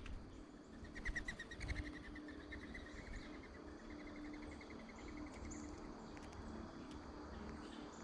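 A distant animal's rapid pulsed trill, about three seconds long and starting about a second in, steady in pitch after a slight dip at first. A few soft knocks come near the start, over a faint steady hum.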